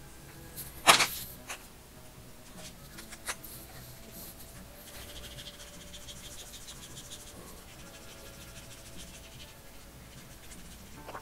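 Felt-tip alcohol marker being worked over Strathmore board in quick, short, repeated strokes, a dry squeaky scratching that runs for several seconds from about halfway through. A sharp click sounds about a second in.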